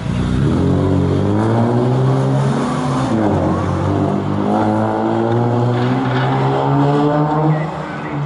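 Aston Martin DB5 stunt car and a motorcycle accelerating hard away from a standstill. The engines rev up sharply at the start, their pitch climbs, dips about three seconds in as a gear changes, then climbs again and holds.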